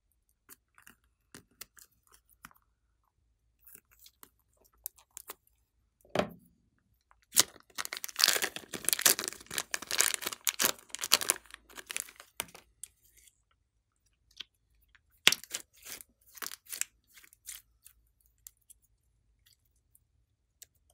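Blue slime squeezed out of a plastic piping bag: dense wet crackling and squelching for about five seconds, starting a third of the way in. Scattered small clicks and pops come before and after as the slime and bag are handled.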